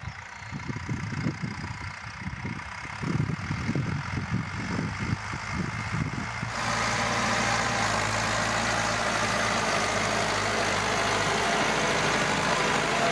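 Massey Ferguson tractor's diesel engine running under load as it pulls a cultivator and seed drill, an uneven rumble at first. About six and a half seconds in, the sound turns abruptly closer and steady: the engine drone plus the clatter of the harrow and drill working the soil.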